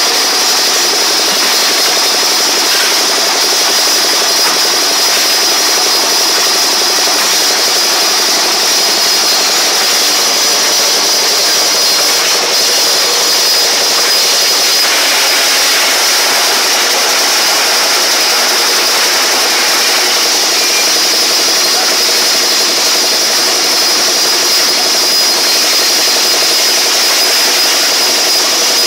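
Motorised ice-crushing machine running steadily with a loud mechanical noise and a high steady whine, grinding a block of ice into crushed ice.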